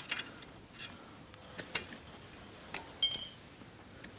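A steel wrench clinking against the motorcycle's rear chain adjuster bolt: a few light scattered taps, then about three seconds in a sharper metallic clink that rings briefly.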